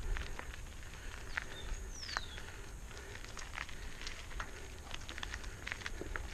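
Mountain bike tyres rolling slowly over loose gravel: scattered crunches and ticks of stones over a low rumble. A single short falling whistle about two seconds in.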